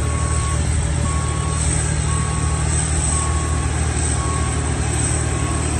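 Steady low drone and high thin whine of a Boeing 747-400 freighter's auxiliary power unit running. A ground vehicle's reversing beeper sounds one tone about once a second.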